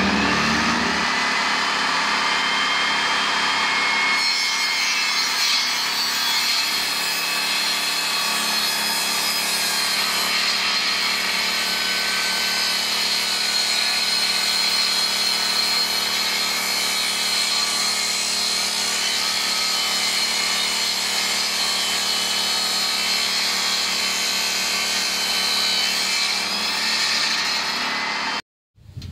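Small benchtop table saw running and ripping a wooden board lengthwise, a steady motor whine under the sound of the blade cutting wood. It stops abruptly near the end.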